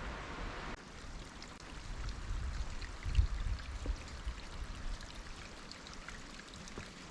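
Steady hiss of running water, with a low rumble of wind on the microphone about three seconds in.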